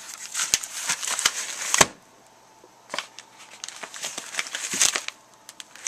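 A mailing package being handled and turned over, its packaging rustling and crinkling with small clicks and knocks, in two bouts with a short pause between.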